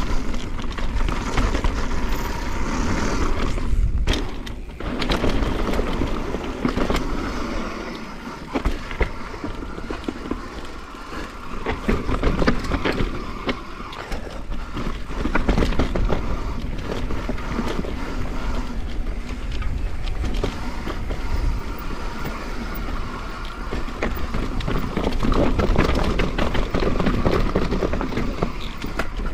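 Mondraker Foxy RR enduro mountain bike riding down a dirt trail: tyres rolling and scrabbling over dirt and rocks, with a steady stream of rattles and knocks from the bike over rough ground, under wind noise on the microphone.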